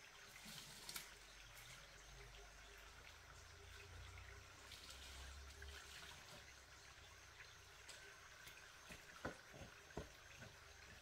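Near silence: faint background hiss and low rumble, with a few soft clicks near the end.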